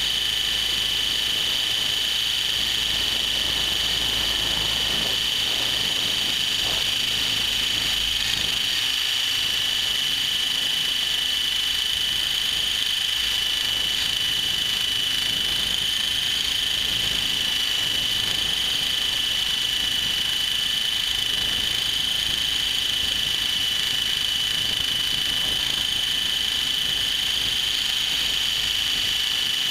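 Align T-Rex 700E electric RC helicopter in flight, recorded from a camera mounted on the helicopter itself: a steady high-pitched whine over the rotor noise, wavering only slightly in pitch.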